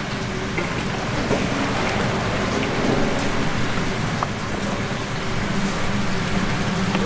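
Steady crackling sizzle of cooking as sauce-coated fried chicken is stirred and tossed with a wooden paddle in a large steel wok, over a steady low hum.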